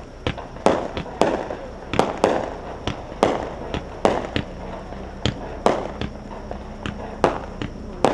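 36-shot firework cake firing in a steady sequence: sharp bangs of shells launching and bursting, about two a second, each trailing off in echo.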